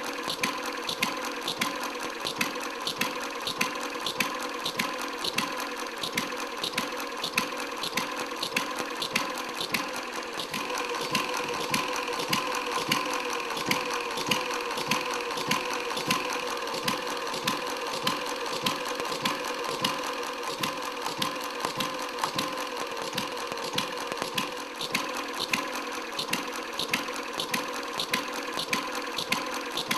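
A quarter-scale model Red Wing hit-and-miss gasoline engine running, with a steady mechanical clatter from its valve gear and governor and regular sharp clicks about three times a second.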